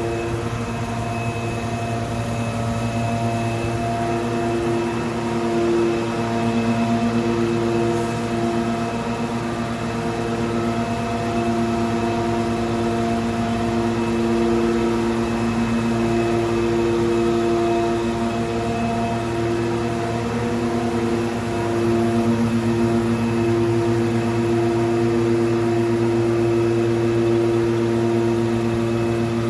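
PC6000 pavement grinding machine running steadily as it cuts the concrete road surface on a second NGCS grinding pass: a continuous machine hum with several steady tones that waver a little in strength.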